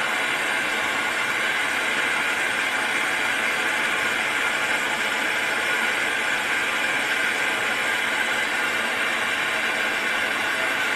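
Gas brazing torch burning with a steady hiss as its flame heats the copper refrigerant tubing of an air conditioner.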